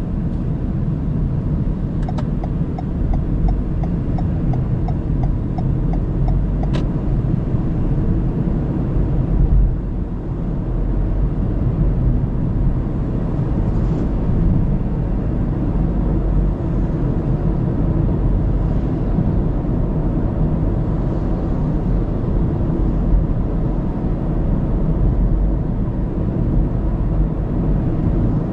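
Car driving on the road, recorded by a dashcam: steady low rumble of tyre and road noise. A few seconds in, a run of regular ticks, about three a second, lasts around five seconds.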